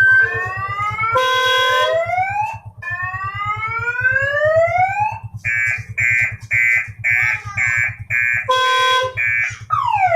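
A multi-tone vehicle horn playing a sequence of sounds: rising whoops, a held chord of several notes, a run of beeps about two a second, and a falling glide near the end. Beneath it, an engine idles with an even low throb.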